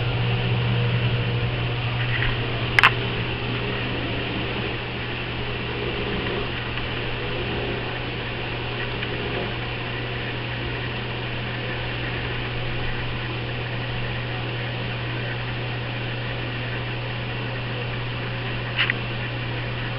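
Steady low mechanical hum with a faint hiss, broken by a sharp click about three seconds in and a short double click near the end.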